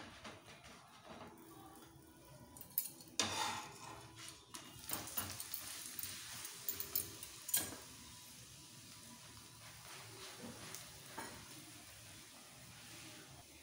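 Methi paratha frying in oil on a flat tawa griddle, sizzling faintly. In the first half a metal spatula scrapes and taps against the griddle as the paratha is turned and oiled with a silicone brush; after that the sizzle goes on steadily, with a few light taps.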